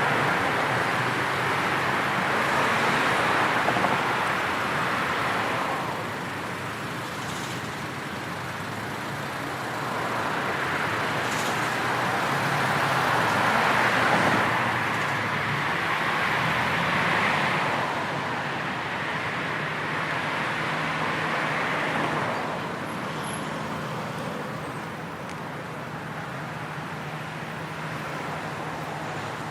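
Busy street traffic: a steady wash of tyre and engine noise from passing cars that swells and fades several times as vehicles go by, growing quieter in the last few seconds.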